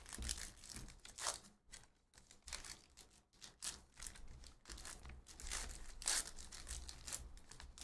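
Wrapper of a Panini Prizm trading-card pack being torn and peeled open by hand, crinkling irregularly.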